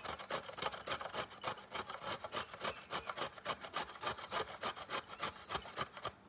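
Carrots being grated on a grater: quick rhythmic rasping strokes, about five a second, stopping just before the end.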